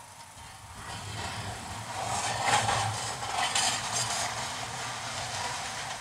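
Heartram ultra-low-floor tram rolling past at low speed over a low hum, its wheels knocking a few times over the rail joints and crossings, loudest about two and a half to four seconds in.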